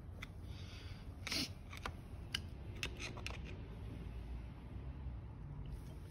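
A flathead screwdriver tip scraping and clicking against steel lock-washer tabs on a motorbike engine as they are pried up against their nuts. There are a handful of short clicks and scrapes, the longest about a second in.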